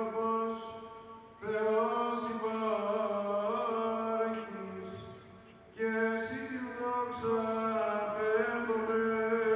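Male voices singing Greek Orthodox Byzantine chant: a melody moving over a steady held drone note. It comes in long phrases that fade out and start again about one and a half seconds in and again about six seconds in.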